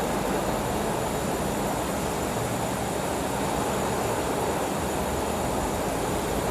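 Tap water running steadily into a pig's lung through its windpipe, filling it to rinse out the blood.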